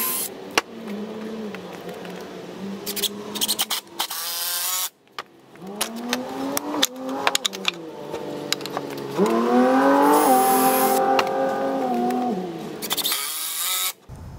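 Ridgid 18V cordless drill driving screws into a wooden 2x4 frame: several runs of motor whine that rises and falls in pitch as the trigger is squeezed and eased, with a few short harsher bursts along the way.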